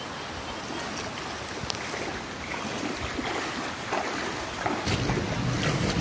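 Steady rushing noise of wind and water. About five seconds in, wind starts buffeting the microphone with a low rumble and it grows louder.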